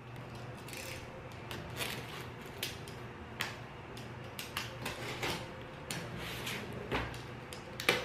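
Hands opening a cardboard box sealed with packing tape, peeling and cutting the tape. It comes through as scattered small crackles, scrapes and taps of tape and cardboard, with a sharper click just before the end and a low hum underneath.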